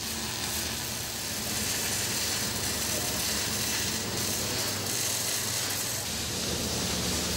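Arc welding on heavy steel: a steady crackling hiss that runs on evenly, over a faint low hum.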